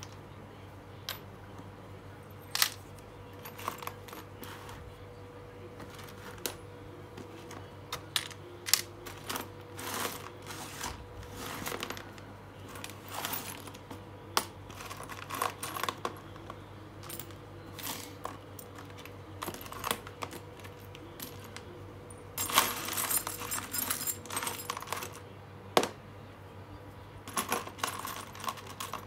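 Old metal screws clinking and rattling as a hand rummages through a pile of them in a plastic bin: scattered sharp clicks, with a longer spell of continuous rattling about three quarters of the way through, over a faint steady hum.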